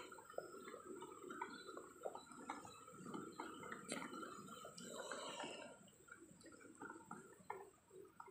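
Soft rustling and crackling of dry grass, straw and leaves, a scatter of small crackles as a kitten moves through them, growing quieter in the last couple of seconds.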